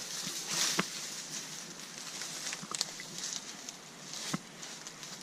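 Dry grass and brush rustling and crackling as a rappeller's body and feet push through it on reaching the bottom of the rope, with a few sharp snaps of twigs or stems.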